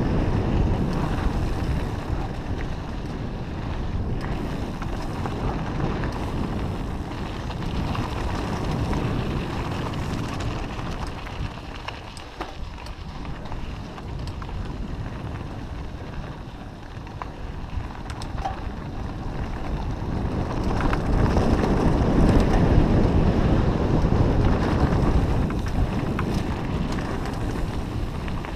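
Wind buffeting an action camera's microphone during a mountain bike ride on dirt singletrack, with the rumble of tyres on the trail and a few light rattles. It eases off midway and swells again after about twenty seconds.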